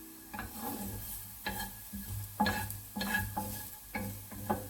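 A utensil scraping and knocking against a frying pan as lightly fried shredded carrot is scooped out, about seven irregular strokes, with a light sizzle from the pan, which has just been taken off the heat.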